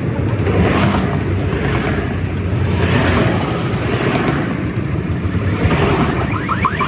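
A motor vehicle's engine running steadily, with a rumble that swells and fades about once a second and a short run of quick high chirps near the end.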